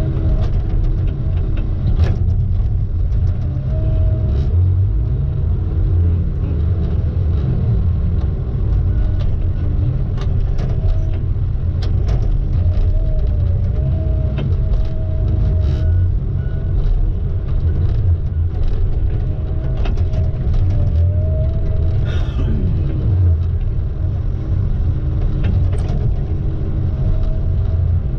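Log truck running under way: a loud, steady low rumble of engine and road, with a faint wavering whine and scattered light clicks. A brief downward glide in pitch comes about two-thirds of the way through.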